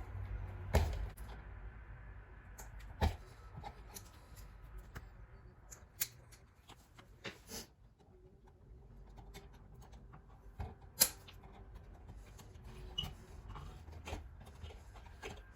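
Stiff copper house wires being handled and twisted together with combination pliers to make up a neutral pigtail: scattered rustles and metallic clicks, the sharpest about three seconds in and again near eleven seconds.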